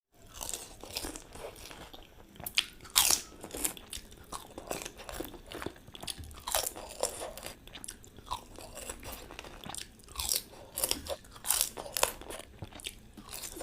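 Someone eating panipuri: the crisp puri shells crunch with each bite, followed by chewing, in many irregular crunches.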